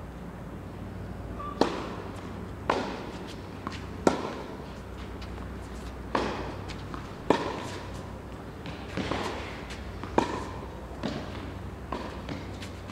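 Tennis rally on a hard court: the ball is struck by rackets and bounces, giving a run of sharp pops about a second apart, some louder than others.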